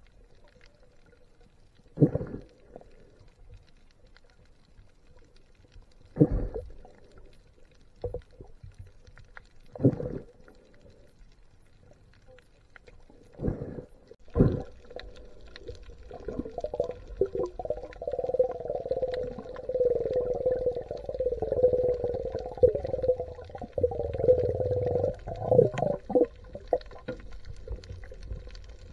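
Underwater sound picked up through a camera's waterproof housing while a diver swims with a speargun: a steady low hum, a handful of sharp knocks spaced a few seconds apart, then from about halfway a louder, wavering rushing sound that lasts around ten seconds.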